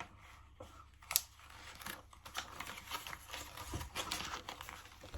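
Soft paper rustling and light clicks, with one sharper click about a second in: a picture book's pages being handled and turned.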